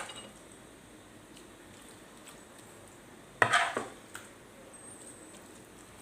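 A metal spoon clattering against a pan or dish while fried onion and tomato are spooned over the tuna: a sharp knock with a brief ring about three and a half seconds in, followed by a second, smaller one.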